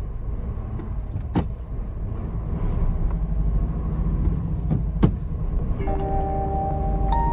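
Steady low rumble of a truck's engine and road noise heard from inside the vehicle, with two sharp clicks, one about a second in and one about five seconds in. Near the end, music with bell-like chime notes comes in over the rumble.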